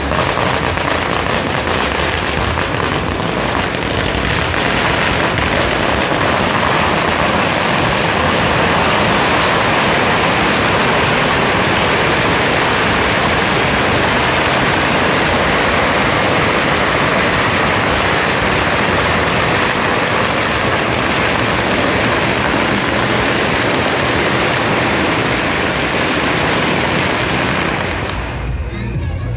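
A long string of firecrackers going off in a dense, unbroken crackle for nearly half a minute, stopping near the end.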